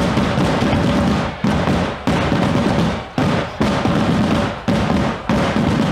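A group of drummers beating large wooden-shelled Italian tamburi together: loud, rapid continuous drumming that breaks off briefly about once a second.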